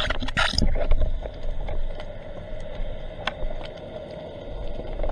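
Underwater sound picked up by a camera in its housing: water-movement knocks and rushes in the first second, then a steady low rumble with scattered sharp clicks.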